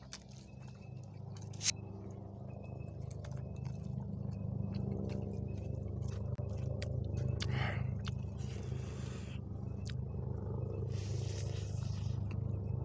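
Eating rice by hand from a steel tiffin tin: fingers scraping and clicking against the metal, with chewing. A steady, evenly pulsing low mechanical hum runs underneath.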